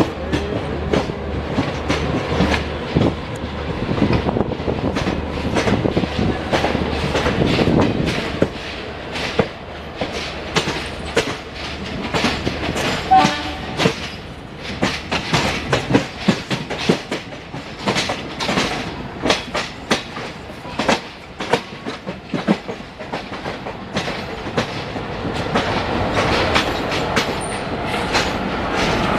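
Passenger train coaches running over the rails, heard from on board. A steady low rumble for the first several seconds gives way to a run of sharp, irregular clacks as the wheels cross rail joints and pointwork.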